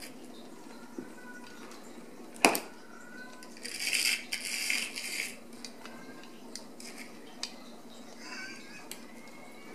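Ragdoll kittens crowding and jostling on a tile floor. A sharp clack comes about two and a half seconds in, then about a second and a half of rattling clatter, with faint high kitten mews here and there.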